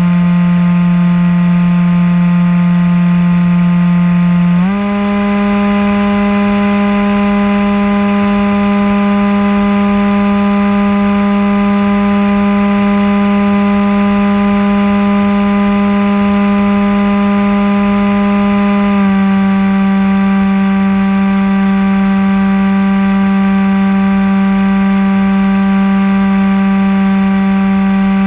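Motor and propeller of a Maxi-Swift RC flying wing, heard from the onboard camera: a loud, steady buzzing drone over a rush of air. Its pitch steps up about five seconds in and drops back down about fourteen seconds later as the throttle changes.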